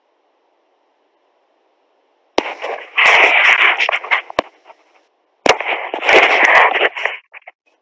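Loud crackling, distorted noise coming through video-call audio, in two bursts that each open with a sharp click, the first about two and a half seconds in and the second about five and a half seconds in. A faint hiss comes before the bursts.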